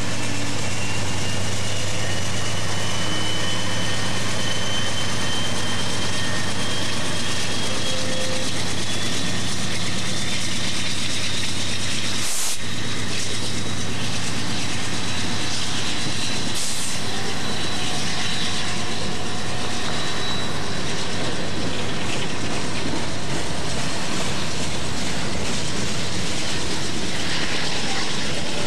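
Freight train passing close by: diesel locomotive engine rumble, then the steady rolling noise of wheels on rails as the cars go by, with a thin whine that rises slowly in pitch.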